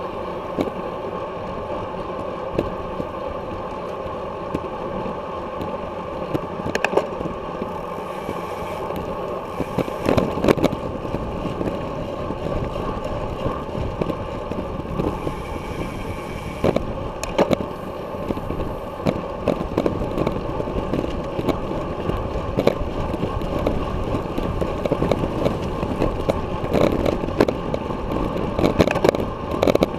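Wind rushing over the microphone of a bicycle-mounted camera, with road noise at racing speed. Occasional short knocks come as the bike jolts on the road surface.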